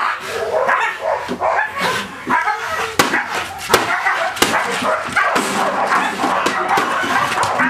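Dog barking repeatedly during bite play on a sleeve. Several sharp knocks come in the middle.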